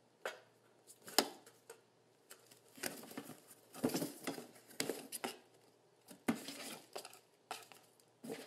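Kitten scrabbling at a cardboard shoebox on a tile floor: irregular taps, scratches and short scrapes of paws and claws on cardboard and tile, with a sharp knock about a second in and a quick flurry around four seconds.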